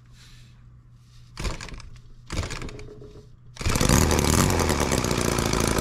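Holt H75 four-cylinder model engine, fuelled with alcohol through a vaporizer carburetor, gives two short bursts about one and a half and two and a half seconds in, then catches and runs steadily and loudly from a little past halfway.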